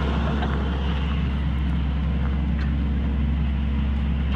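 Excavator's diesel engine running steadily at a constant low drone.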